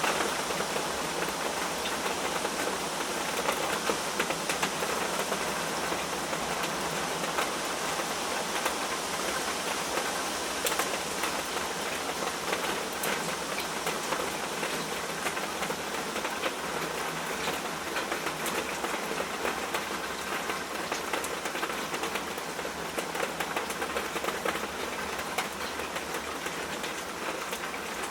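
Steady rain falling on a surface, a dense even hiss with many small drop taps.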